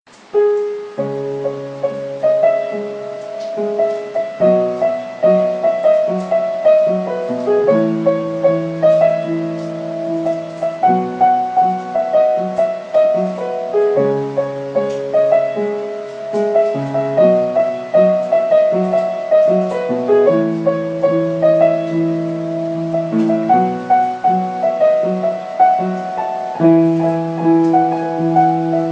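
Background piano music: a slow piece of repeated chords that changes chord every few seconds, starting about a second in.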